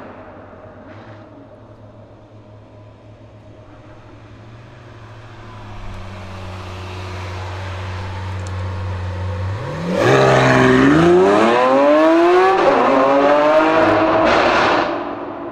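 Lamborghini Aventador SVJ's V12 engine, first running low and steady, then about ten seconds in opening up sharply into hard acceleration. The pitch climbs, dips once at a gear change, climbs again, and fades near the end.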